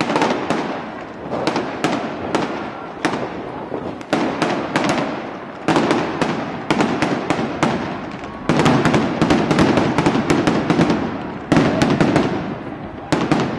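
Aerial fireworks bursting overhead: a continuous string of sharp bangs, coming in fast runs of several a second in places, each trailed by echo.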